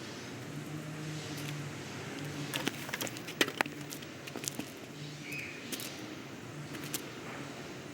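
Film sound effects: scattered sharp clicks and taps, bunched together in the middle, over a faint background hiss and an on-off low hum.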